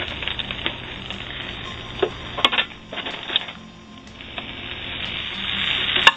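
Omelet sizzling in a small nonstick frying pan, with scattered clicks and scrapes of a spatula folding it. The sizzle dies down, then swells again toward the end, and a sharp knock comes near the end as the pan is tipped over the plate.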